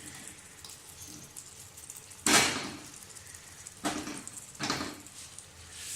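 Potato pieces dropped into a pan of simmering curry: three short splashing swishes, the loudest about two seconds in and two softer ones near four seconds.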